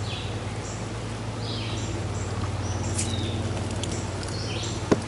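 A songbird's short descending calls repeating every second or so over a steady low hum, with one sharp click near the end.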